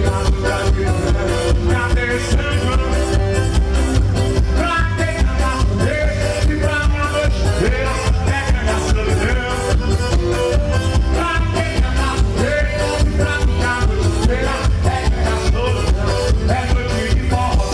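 Forró music played loud with a singer, over a steady quick dance beat.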